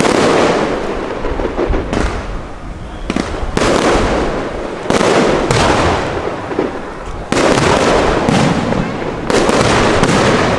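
Aerial fireworks shells bursting one after another, about six in all. Each bang trails off into a noisy, crackling wash that lasts a second or two before the next one.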